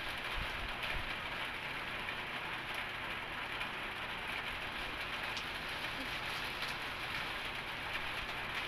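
Steady background hiss with a few faint clicks.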